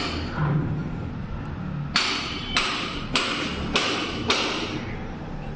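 Hammer blows in a steady rhythm: after a pause of about two seconds, five strikes come roughly half a second apart, each with a brief high ring.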